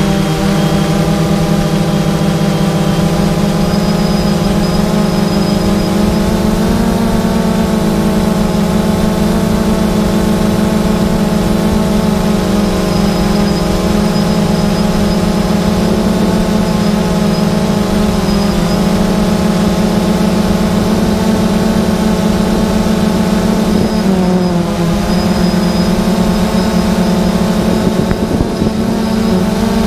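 Drone's motors and propellers running steadily in flight, a loud hum of several steady tones heard through the onboard GoPro, shifting slightly in pitch about 7 and 24 seconds in.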